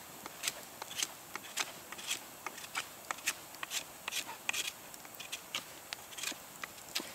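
Knife whittling a green twig: short, irregular scraping strokes of the blade shaving the wood, about two or three a second.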